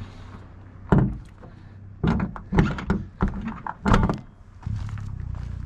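Tesla Model 3 front trunk (frunk) lid being shut: one thunk as it comes down about a second in, then several more as it is pressed down by hand to latch.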